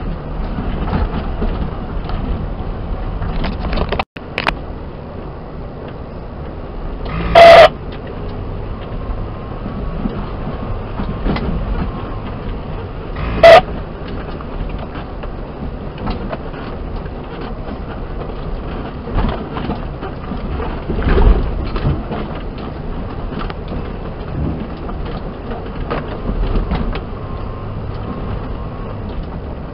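Suzuki Jimny driving slowly up a rough gravel track, picked up by a camera mounted on the car: a steady rumble of engine and tyres with small rattles throughout. Two loud, short bangs stand out, about seven and a half and thirteen and a half seconds in, as the car jolts over the rocky surface.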